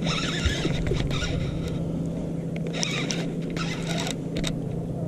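A boat's motor hums steadily, with a few short bursts of higher hissing or whirring over it.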